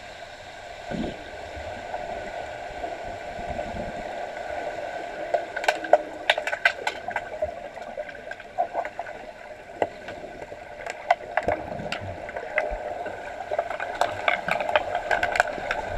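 Underwater swimming-pool sound picked up by an underwater camera: a steady hum with clusters of sharp clicks and clacks, typical of underwater hockey sticks striking the lead puck and scraping the pool tiles. The clicks come in bunches about five seconds in, again around eleven seconds, and thickest near the end.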